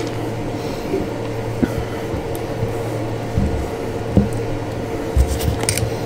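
Steady electrical or fan-like background hum, with a few light clicks and knocks of tools and wire being handled, the sharpest near the end.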